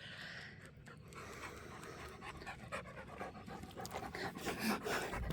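Dog panting hard after running to fetch a ball, the quick breaths growing louder near the end.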